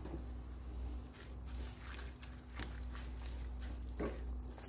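Cream sauce simmering gently in a nonstick pan over a steady low hum, with faint scattered pops and crackles. About four seconds in, a plastic spatula knocks against the pan as it starts stirring in the spinach.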